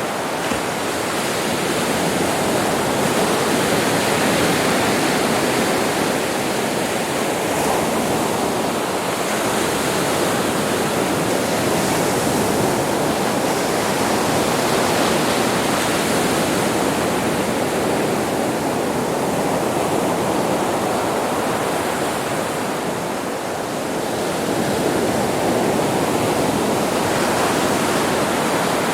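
Sea waves breaking and washing on a beach, a steady rush of surf that swells and eases gently every few seconds.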